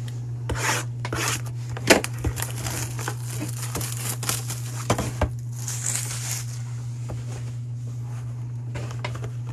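Cardboard trading-card hobby box being handled and opened: crinkling and rustling with scrapes and several sharp taps and clicks, over a steady low hum.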